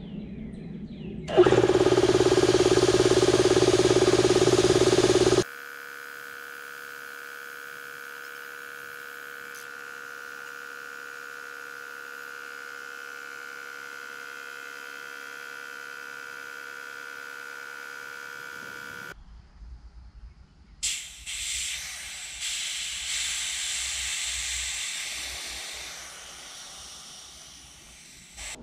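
Alkin W31 high-pressure air compressor starting up with its valves open and running loudly, air hissing out. It drops abruptly to a quieter, steady run. Near the end there are a few seconds of air hissing.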